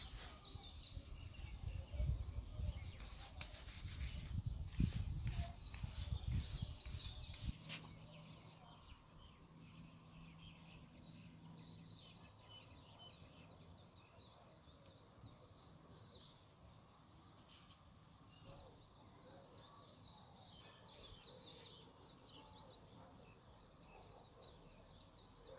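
A cloth rubbing and rustling over a carved wooden figure as it is wiped and handled, with a few light knocks, for about the first seven seconds. Afterwards it goes quieter, and small birds chirp now and then in the background.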